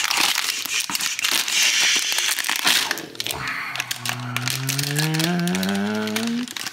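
Foil blind-box bag crinkling and crackling as it is pulled from its cardboard box and worked open by hand. About four seconds in, a low drawn-out hum, like a man's voice, slowly rises in pitch for a couple of seconds over the crinkling.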